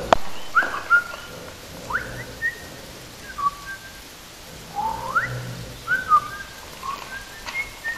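A sharp knock at the very start, then scattered short whistle-like chirps, a few sliding quickly upward, spaced a second or so apart.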